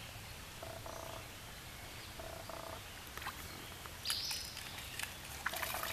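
Faint steady outdoor background by a stream, with two short pitched animal calls about one and two seconds in. A brief hiss and a few sharp clicks follow near the end.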